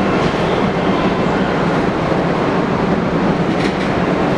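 Keio Liner electric commuter train running into the station: steady wheel-on-rail noise with a low hum, and a few faint clicks about three and a half seconds in.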